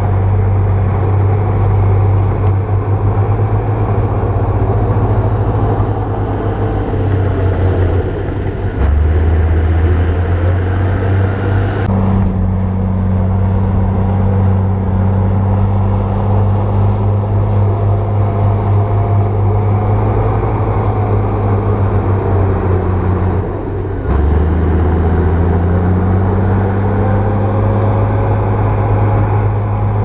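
Heavy earthmoving machinery's diesel engine running under load, its pitch shifting as the revs change and rising again near the end, with abrupt changes in the sound about a third and two-thirds of the way through.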